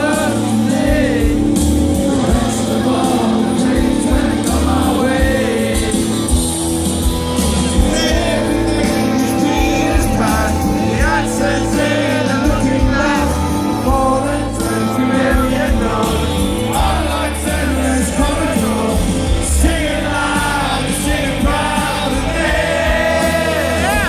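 Live rock band playing with a sung vocal line over sustained guitar and keyboard chords and a steady low bass.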